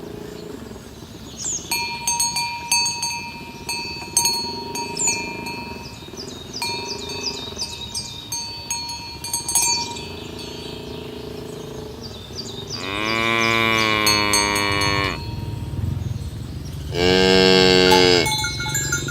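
Cows mooing: two long, loud moos in the second half, the second one shorter and higher. Before them come softer, lower calls and short high chirps.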